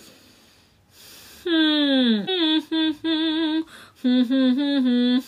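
A woman humming with a pencil held between her teeth, lips closed around it, in a nasal-resonance singing exercise. About a second and a half in, one note slides down, followed by a string of short held notes that step up and down.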